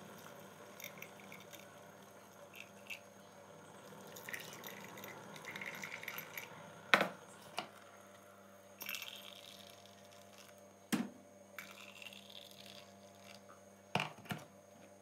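Hot tea poured from a teapot into small tulip-shaped glass tea glasses, a faint trickling pour, with several sharp clinks of glass and metal teaspoon, the loudest about halfway through.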